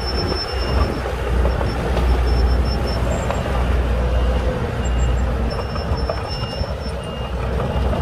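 Komatsu mini bulldozer's diesel engine running steadily under load as the blade pushes sand, with track clatter and short high beeps now and then.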